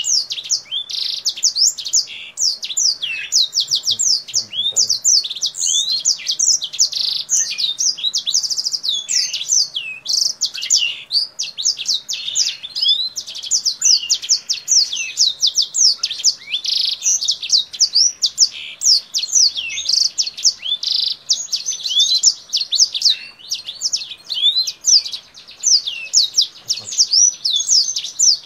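Caged kingthroat songbird singing a long, unbroken song of rapid sweeping whistles and fast trills, high-pitched and without pauses. The song resembles a black-throated canary's.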